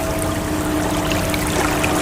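Steady rushing, splashing water with many small trickling droplet sounds, over a held low drone tone.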